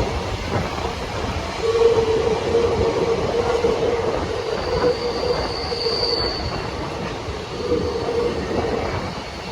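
Empty freight wagons rolling past with a steady rumble of wheels on rail, the wheels squealing in a held tone for several seconds and again briefly near the end, with a short higher-pitched squeal in the middle.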